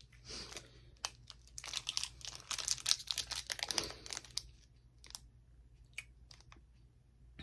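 Plastic candy wrapper crinkling and tearing as it is opened, in a dense run of crackling from about one and a half to four and a half seconds in, then a few scattered crackles.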